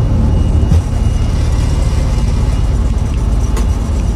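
Jet airliner (Airbus A320 family) on short final with gear down, its engines giving a loud, steady, low-heavy roar. A brief thump comes just under a second in.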